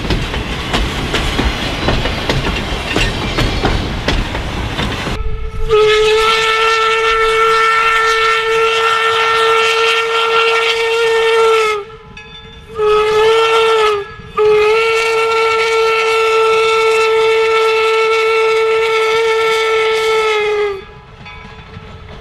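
Wooden passenger coaches rolling past close by, their wheels clattering over the rail joints. About five seconds in, a 4-4-0 steam locomotive's whistle blows one long blast, a short one and another long one, each a steady tone.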